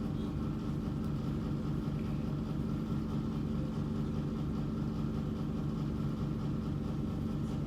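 Steady low machine hum made of several held low tones, with no change in level.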